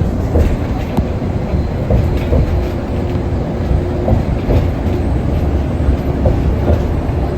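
Subway train running, a steady low rumble with faint rattling and clicks from the wheels on the track.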